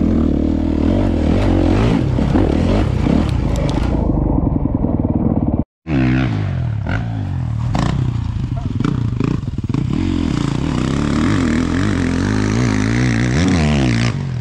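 Four-stroke motocross bike engine at full throttle from on board, easing off about four seconds in. After a brief cut to silence, a motocross bike is heard from trackside revving up and down through the gears, its pitch climbing again near the end.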